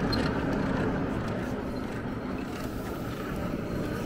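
Hand-cranked blower of a blacksmith's charcoal forge turning steadily, blowing air into the fire, which burns with a steady rushing noise and small crackles.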